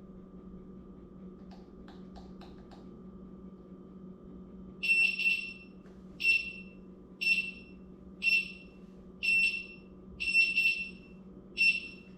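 A Begode A2 electric unicycle's buzzer beeping a warning, loud high-pitched beeps about once a second, some doubled, starting about five seconds in after a few faint clicks. A steady low hum lies underneath.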